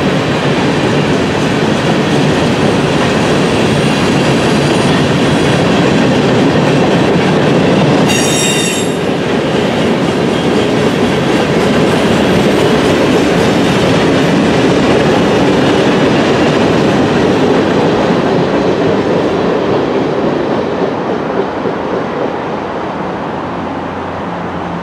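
Freight train cars, mostly tank cars and a covered hopper, rolling past with a steady rumble and clatter of wheels on rail. A brief high wheel squeal comes about eight seconds in. The sound fades over the last few seconds as the end of the train goes by.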